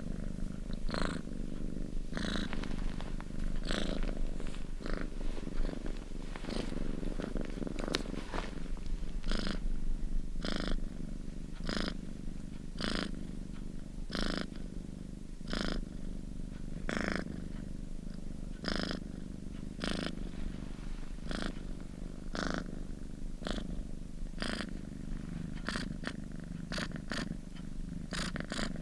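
House cat purring: a steady low rumble with breathy swells, about one and a half a second.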